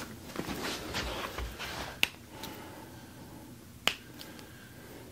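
Two sharp joint cracks during a chiropractic adjustment, about two seconds apart, the first about two seconds in, after a stretch of rustling movement.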